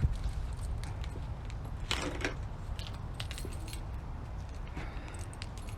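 Scattered light clicks and rattles of small hard objects being handled, with a thump at the start and a short scraping rustle about two seconds in, over a steady low rumble.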